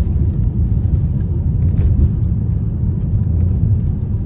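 Steady low road rumble of a moving car heard from inside the cabin: tyre and engine noise while driving.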